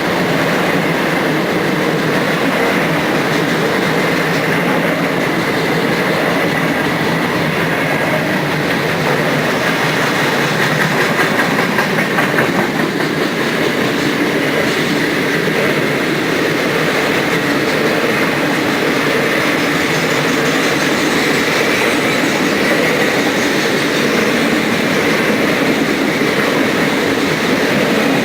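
Manifest freight train's cars rolling past, a steady rumble of steel wheels on the rails with clickety-clack over the rail joints.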